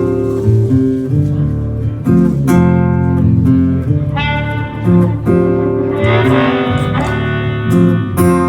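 Instrumental break in a live blues song: guitars picking a melody over sustained low notes, with no singing.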